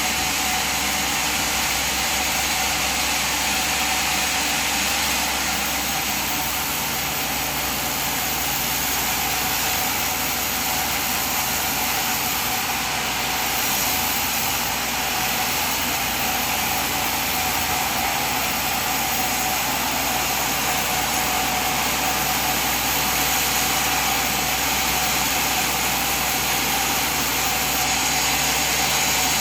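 Sawmill machine running steadily, an even mechanical drone with no pauses or changes.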